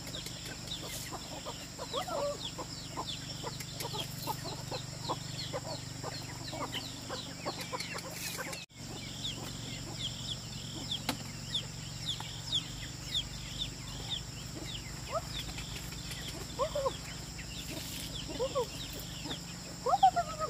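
Chickens: a stream of short, high, falling peeps, typical of chicks, with a few lower hen calls now and then, over a steady low hum. The sound drops out for a moment a little before the middle.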